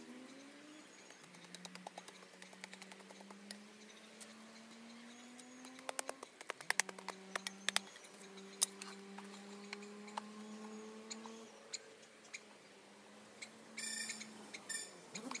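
Irregular sharp knocks and taps from a hand tool striking the soil at the base of a bamboo fence post, loudest about six to nine seconds in, over a steady low hum that slowly rises in pitch.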